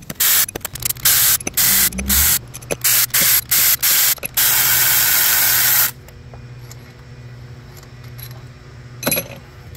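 Power ratchet spinning out the rocker-arm bolts on a Jeep 4.0 inline-six cylinder head: a string of short hissing bursts, then one longer run of about a second and a half about four seconds in, and one last short burst near the end.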